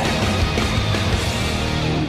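Hockey goal song: hard rock music with electric guitar, played at a steady level.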